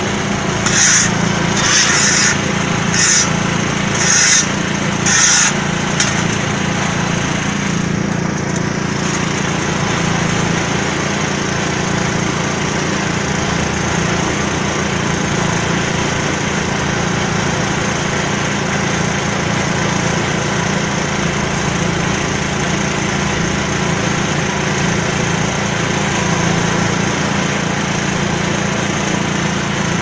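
Small single-cylinder-class diesel engine of a mobile concrete mixer running steadily at constant speed, turning the drum. For the first six seconds a hissing scrape repeats about once a second, then stops.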